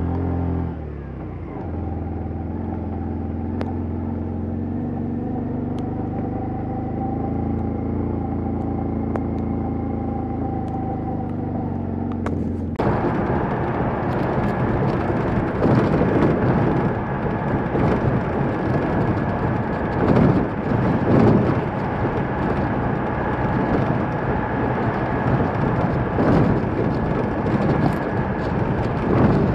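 Motorcycle engine running at a steady speed while riding. About 13 seconds in the sound switches abruptly to louder, rougher engine and road noise inside a rock road tunnel, swelling a few times.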